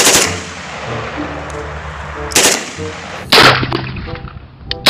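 Single gunshots from a real rifle and pistol, each a sharp crack with a short echoing tail. One comes right at the start, one about two and a half seconds in, a louder one about a second later, and one at the very end.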